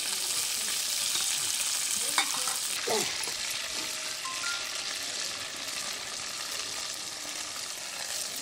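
Gram-flour-battered prawn pakodas deep-frying in hot oil in a kadai, a steady sizzling hiss, with a short sharp knock about two seconds in.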